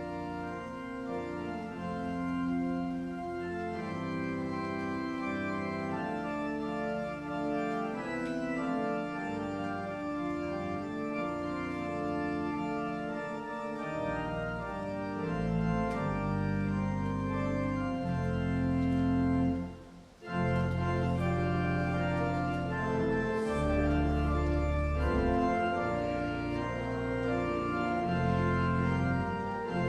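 Church organ playing slow, held chords; deep pedal notes join about halfway through, with a brief pause between phrases shortly after.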